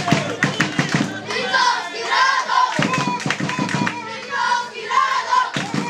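Football supporters chanting together and clapping in rhythm, with bursts of claps at the start, about three seconds in and near the end.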